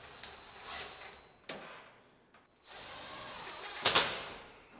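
Cordless drill driving sheet-metal screws through the stovepipe into the ceiling adapter, running in short spurts with a sharper, louder burst about four seconds in.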